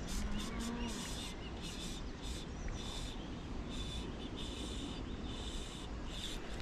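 Fly line being stripped by hand through the rod guides in a run of short pulls, each a brief hissing zip, while a hooked trout is played by hand before the line goes back on the reel. Faint birdsong behind.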